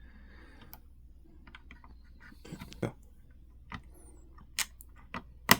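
Scattered small clicks and taps of an M.2 NVMe SSD being pressed down into its motherboard slot, ending in a sharp louder click as the tool-less M.2 latch snaps shut over the drive.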